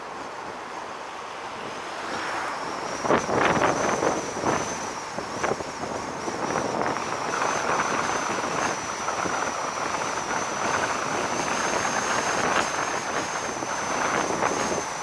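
Wind rushing over the microphone of a moving vehicle, in gusts that come stronger a few seconds in and again near the end, with a thin steady high whine underneath.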